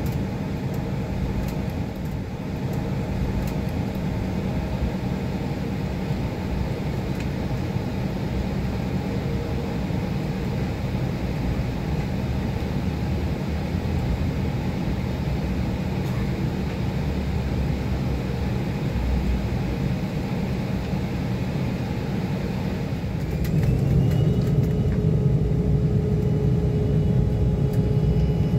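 Jet airliner engines heard from inside the cabin: a steady low rumble while taxiing. Near the end the engines spool up for the takeoff run, growing louder, with a whine that rises and then holds steady.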